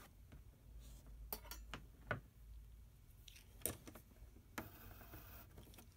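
Faint, scattered clicks and taps of a small metal E-clip and screwdriver being handled against a receipt printer's metal mechanism, with a brief scrape near the end.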